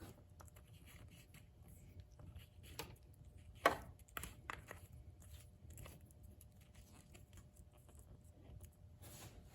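Faint small clicks and taps of an engine oil filler cap being put back on and threaded in by hand, with one louder click about three and a half seconds in.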